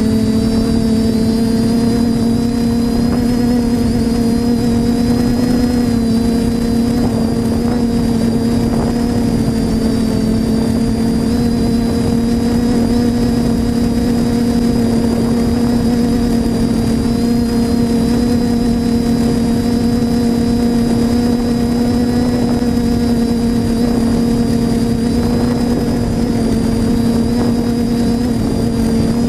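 Quadcopter's electric motors and propellers buzzing steadily in flight, a loud hum with a high whine over it and only slight changes in pitch.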